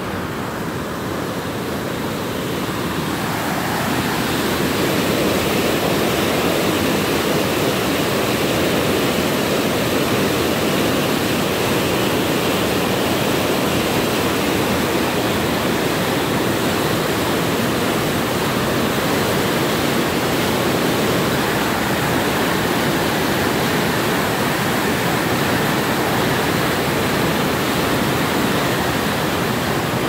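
Fast water rushing out below a dam, churning into white water: a steady rushing noise that grows louder over the first few seconds and then holds.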